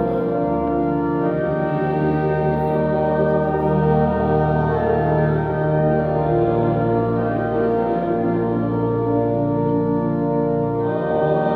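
Organ music: slow, sustained chords, each held for a second or two before moving to the next.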